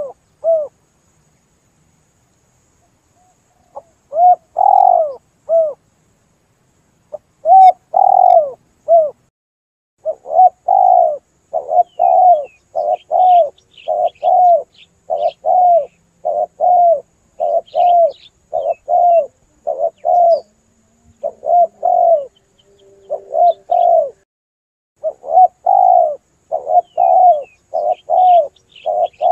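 Spotted dove (tekukur) cooing repeatedly: short, arched hoots in quick runs, a pause of a few seconds near the start, then almost unbroken. Faint high chirps of a smaller bird sound over it.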